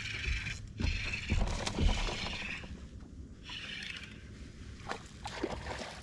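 Fishing reel cranked fast in two spells, a whirring rasp, with low thumps from feet shifting on the boat deck while a hooked bass is fought.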